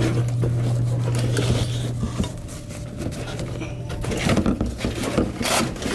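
Cardboard packing rustling and scraping, with scattered knocks, as a soda machine's refrigeration cooling deck is carried and lowered into the machine's base. A steady low hum sounds underneath and drops away about two seconds in.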